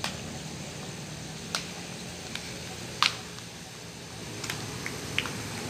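Scattered light sharp clicks, about seven, the loudest about three seconds in, as fishing hook and line are handled, over a steady low background hum.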